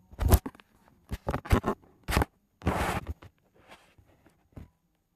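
Handling noise from a phone being moved and turned over on carpet: a string of short rustles and scrapes, the longest just before the halfway mark, fading to a few faint ticks.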